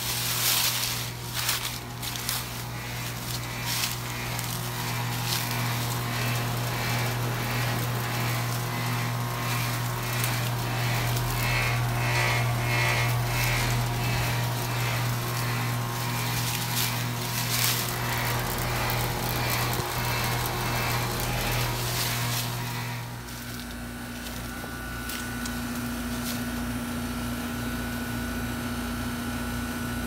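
Outdoor heat pump units running. First a loud steady compressor hum with a rhythmic ticking about twice a second, then, after a cut about two-thirds of the way in, a Trane XR13 unit running with a steady whine over a low pulsing fan.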